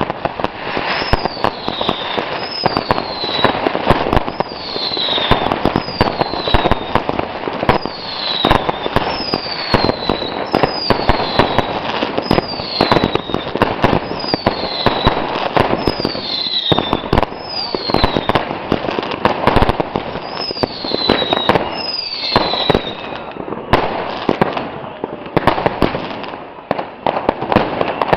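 Consumer fireworks batteries (cakes) firing: dense bangs and crackling, with a falling whistle about every one to two seconds until about 23 seconds in.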